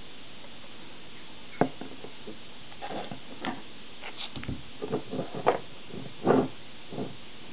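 Irregular light clicks and taps from handling at a table over a steady hiss, starting a moment in, with a dull thump about four and a half seconds in and a louder tap near the end.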